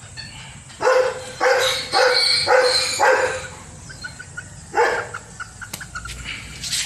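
A dog barking: five barks about half a second apart, then one more a little later.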